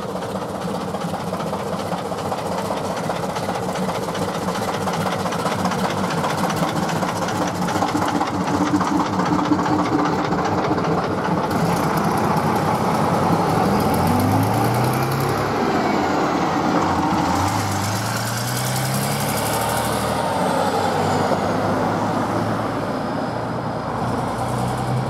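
Vintage single-deck bus's diesel engine running as the bus pulls away and drives past, the engine note rising twice midway as it picks up speed through the gears.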